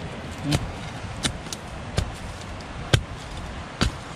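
A hand digging tool chopping into the ground and roots at the base of a small tree that is being dug out: five sharp strikes, about one a second.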